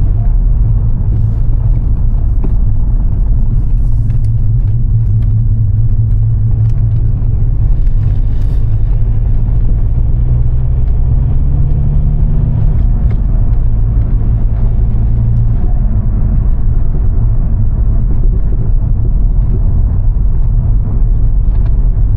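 Volkswagen Jetta being driven: steady low engine and road rumble, the engine note climbing and then dropping back about thirteen seconds in.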